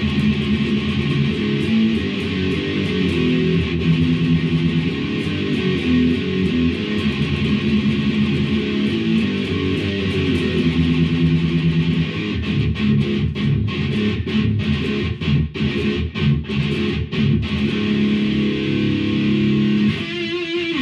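Electric guitar with EMG 81 and 85 active pickups, played through an amp: sustained chords, then from about halfway through, short choppy chugs with brief gaps.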